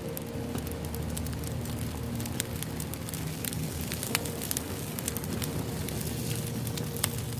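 Firewood burning in a fire, crackling with irregular sharp pops and snaps over a soft, steady rush of flame.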